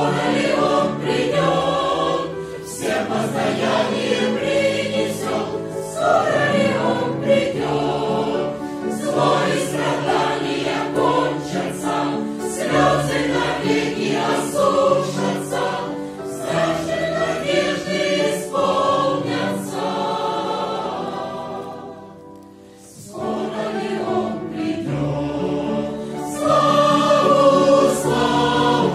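Mixed church choir of men and women singing a Christian song in chords. The sound thins to a short pause a little past two-thirds through, then the singing resumes and swells louder near the end.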